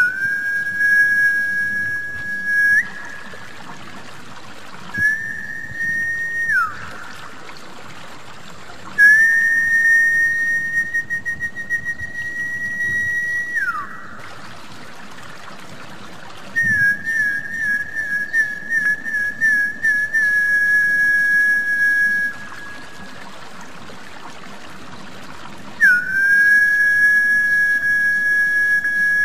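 Whistled snakehead (gabus) lure call: five long, steady high whistles with pauses between, the third rising slightly and ending in a falling glide, the fourth opening with a warble. A constant trickle of water runs underneath.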